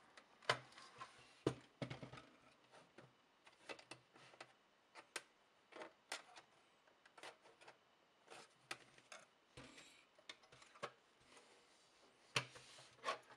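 Faint, irregular clicks and taps of hands and a thin tool working at the sheet-metal case and front panel of an HP E3611A bench power supply to slide the panel off, the loudest knocks about half a second in, a second and a half in and near the end.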